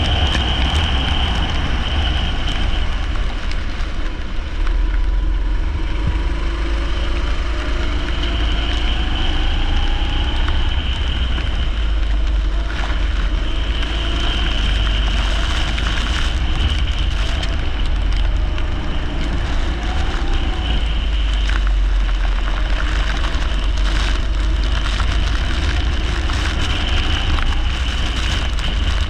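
Leisure kart's four-stroke engine running at race pace, its pitch slowly rising and falling as it speeds up and slows down, over a heavy low rumble.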